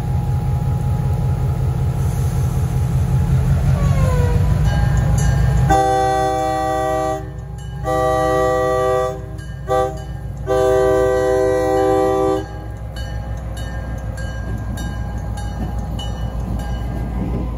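EMD SW1000 diesel switcher locomotive running close by, its engine a steady low drone. It sounds its air horn, several notes at once, in the grade-crossing signal: two long blasts, one short, one long.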